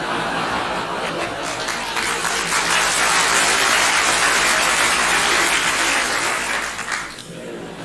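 Audience applauding amid laughter. The clapping swells about two seconds in, holds, and dies down near the end.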